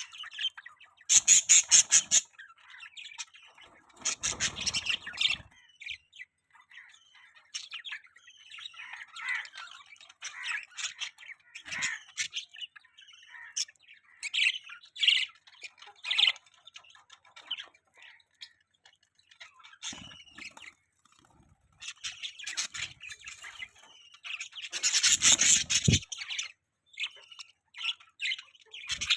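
Budgerigars chirping and chattering in quick, high twitters throughout, with several louder bursts of rapid chatter.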